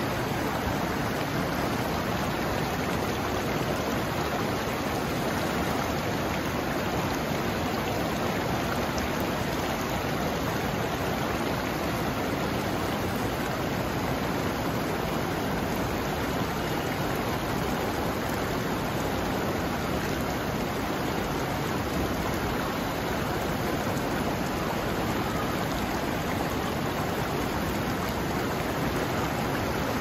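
Lidder river gushing over boulders in shallow rapids: a steady, unbroken rush of white water.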